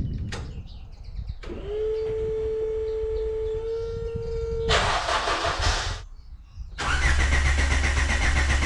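A car being started: a steady starter whine for about three seconds, then a loud burst. After a short drop, another four-cylinder engine is running loudly at a fast cold-start idle, which is the Citroën Saxo Cup's 1.6 16-valve engine.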